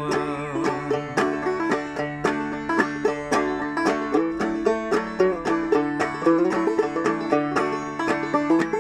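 Five-string banjo tuned aDADE, played clawhammer style: an instrumental break of brisk, evenly paced plucked notes over a ringing drone.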